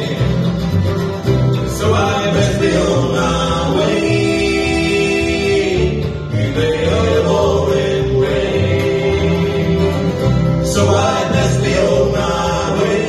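Live bluegrass band playing: fiddle, acoustic guitar, mandolin and upright double bass, with voices singing the song.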